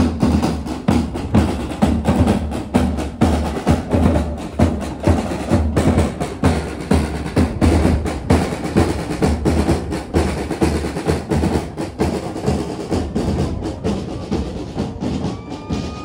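Drums playing a steady, fast beat: deep bass-drum thumps under rapid lighter strikes.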